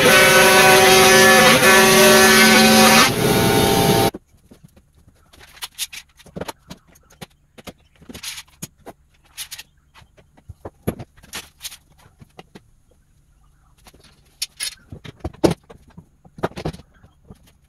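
A router in a router table running at full speed with a steady high whine as a board is fed past the bit; it cuts off abruptly about four seconds in. Scattered clicks and knocks of quick-release bar clamps being set and tightened on a glued workpiece follow.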